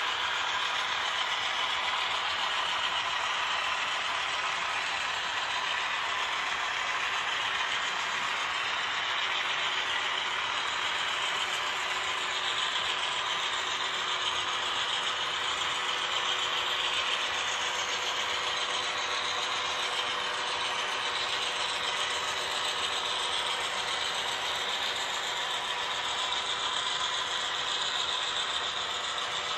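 HO scale model trains running on the track: a steady whirring and clatter of small metal wheels on rail and locomotive motors and gears.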